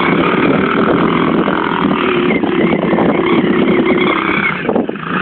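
Small 110cc ATV engine running under throttle as the quad is ridden over dirt, its pitch wavering with the throttle, with a brief drop in level near the end.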